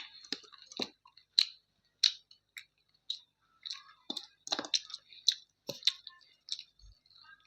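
Close-miked wet chewing of a mouthful of chicken curry and rice, with sharp mouth clicks and lip smacks coming irregularly, one or two a second.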